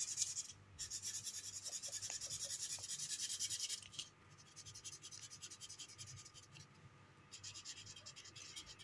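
Brown felt-tip sketch pen scribbling on paper to colour in a tree trunk, in quick back-and-forth scratchy strokes. The strokes are louder for the first few seconds, then softer with brief pauses.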